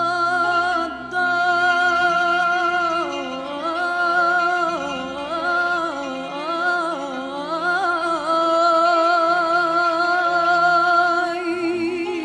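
A woman singing a long wordless melismatic passage over soft instrumental backing: a held note, then ornamented runs that rise and fall, then another long held note.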